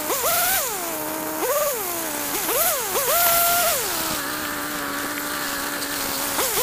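Two-stroke chainsaw being blipped in short revs, each one climbing in pitch and falling back, then idling steadily for a couple of seconds before revving up again near the end.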